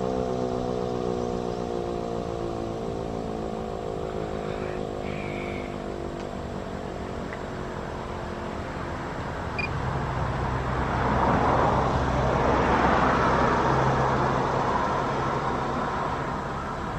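Sentry 10V outdoor warning siren winding down, its tone slowly falling in pitch and fading away over the first several seconds. Later a passing vehicle rises and fades, the loudest sound, peaking about two-thirds of the way in.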